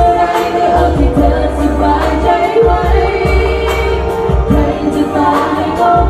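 Two women singing a Thai pop song into handheld microphones over backing music with bass and a steady beat, amplified through the stage PA.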